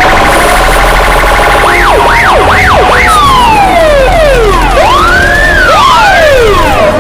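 A loud, chaotic mix of sirens and alarms made as a 'collapse' sound for desensitizing protection dogs. Several siren wails overlap: long falling sweeps, quick up-and-down yelps about two seconds in, and a fast pulsing alarm at the start.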